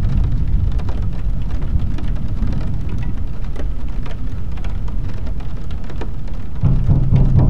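Steady heavy rain falling, pattering over a low rumble like distant thunder. Near the end a low, deep note of music comes in under the rain.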